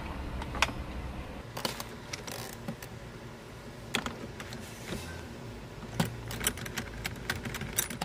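Socket wrench on a long extension undoing a steering-wheel airbag mounting bolt: scattered metallic clicks and taps, coming faster near the end.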